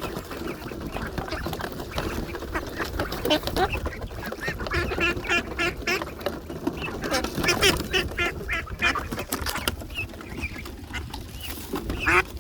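Several ducks quacking in quick runs of short calls, busiest through the middle of the stretch and again just before the end, over a steady low rumble.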